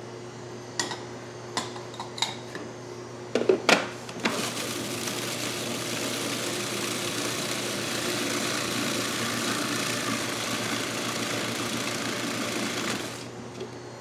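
A few clicks and knocks, then a food processor motor runs steadily for about nine seconds, blending flour, butter, sugar, spices and egg into a coarse cookie dough, and cuts off.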